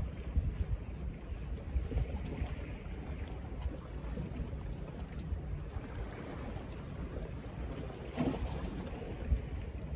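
Wind rumbling on the microphone over the wash of calm sea against shore rocks, with a brief louder rush about eight seconds in.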